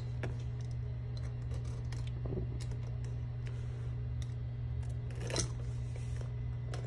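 Light scattered clicks and scratches of a pen point working against a cardboard phone box to cut it open, with a louder click about five seconds in, over a steady low hum.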